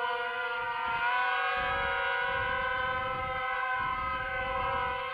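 Racing quadcopter's brushless motors and propellers whining in flight: a steady, many-toned buzz that rises a little in pitch about a second in.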